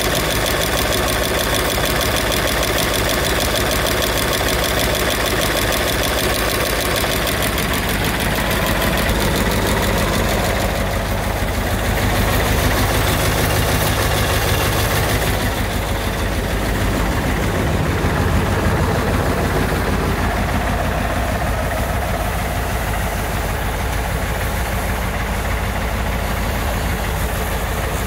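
Mercedes-Benz 2626 truck's diesel engine idling steadily, heard close up at the open engine bay.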